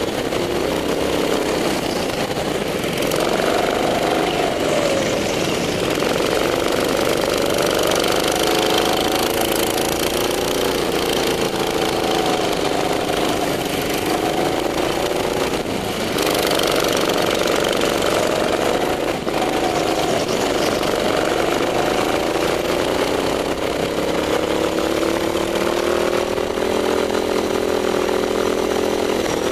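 Go-kart engine heard from on board at racing pace, its pitch rising under throttle on the straights and dropping as the driver lifts for each corner, again and again through the lap.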